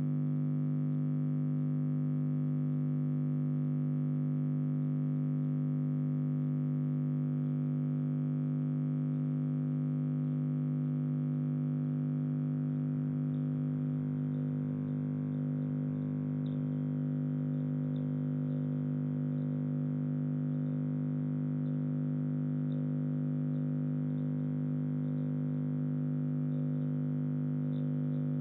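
Background music: a low drone held steady and unchanging, with faint high ticks over it in the second half.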